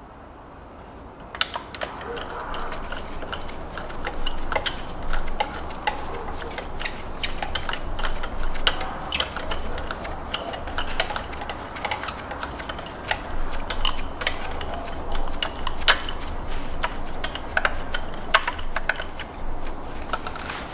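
Ratchet wrench clicking in irregular runs as a new spark plug is screwed down by hand through an extension, starting about a second and a half in.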